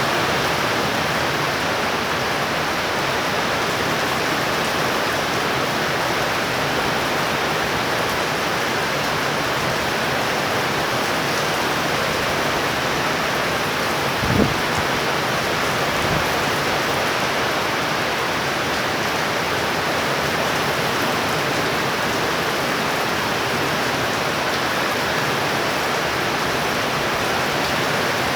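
Steady downpour of thunderstorm rain, with a brief thump about halfway through and a fainter one a couple of seconds later.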